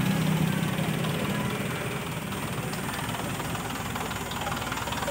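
Petrol engine with a contact-point distributor idling steadily at about 800 RPM, with a fine, rapid mechanical clatter that the mechanic puts down to the timing chain.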